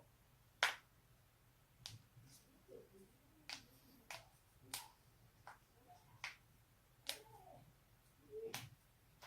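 Human joints cracking: a series of sharp single pops at uneven intervals, about one a second, the loudest near the start.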